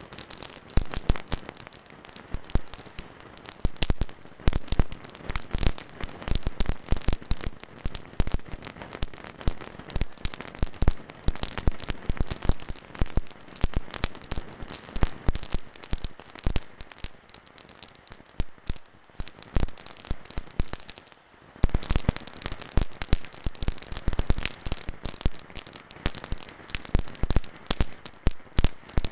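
Fireworks spraying sparks right over and onto the camera: a dense, continuous crackling and popping, with a brief lull about 21 seconds in before it picks up again.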